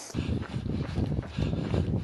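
Running footsteps: a steady rhythm of dull thuds, about two a second.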